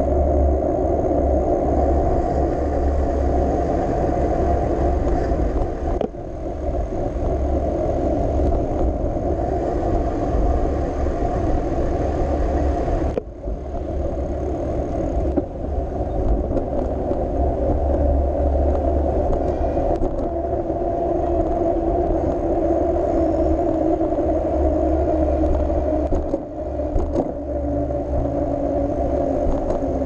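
Steady wind rumble on the microphone mixed with tyre and street-traffic noise from a bicycle riding through city traffic. There are short sudden drops about six and thirteen seconds in.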